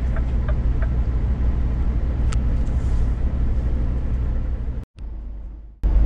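Scania S500 truck's diesel engine and tyres heard from inside the cab while driving, a steady low drone. A single sharp click comes about two seconds in, and near the end the sound drops out abruptly for a moment before coming back.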